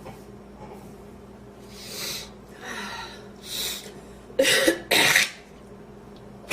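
A woman coughing: three softer coughs, then two loud coughs in quick succession about four and a half seconds in. She is trying to clear a piece of inhaled sandwich that she still feels in her windpipe.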